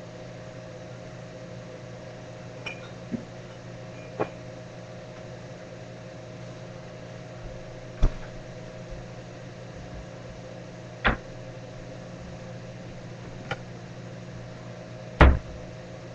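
Steady electric hum of a running kitchen appliance, with a few sharp knocks and clicks every couple of seconds; the loudest knock comes near the end.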